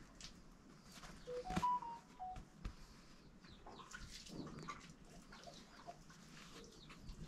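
Faint bird calls with scattered light clicks, and a short run of five clear tones stepping up and down in pitch about a second and a half in.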